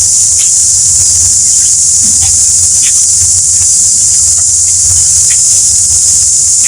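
Loud, steady, shrill drone of an insect chorus, one high hiss-like pitch held without a break.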